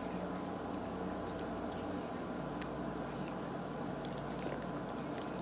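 Someone chewing banana: faint, scattered wet mouth clicks over a steady background hum.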